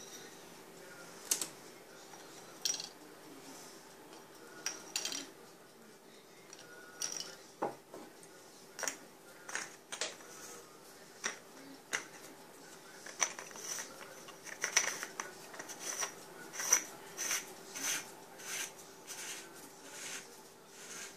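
Metal LED flashlight being handled: sharp clicks and taps of its metal parts, scattered at first and coming more often in the second half, as the head and battery tube are screwed together and the torch is turned in the hands.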